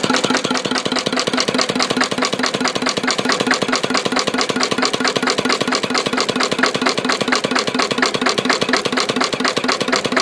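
Single-cylinder Lister CS 9/1 (JP1) stationary diesel engine running steadily, each firing stroke a sharp, even knock in a fast rhythm over a constant hum.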